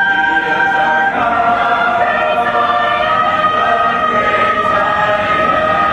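A small mixed choir of Mennonite singers singing a hymn a cappella, the voices moving between sustained chords with a long held note in the second half. The singing carries in a tiled underground subway station.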